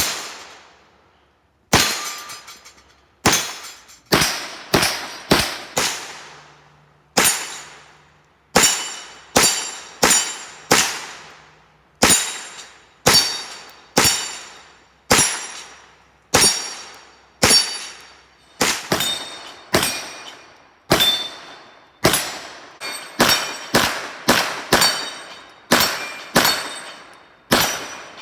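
Slow, steady string of 9mm gunshots, about forty in all, coming faster toward the end, each followed by a brief metallic ring typical of hits on steel targets.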